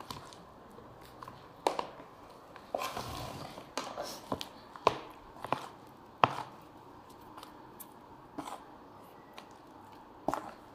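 A spoon knocking and scraping against a plastic tub as mashed banana is stirred into flour for a batter: irregular sharp taps, with a short scrape about three seconds in.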